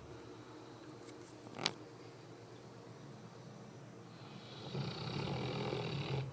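Newfoundland dog snoring: one long snore begins about four seconds in. A single sharp click about a second and a half in.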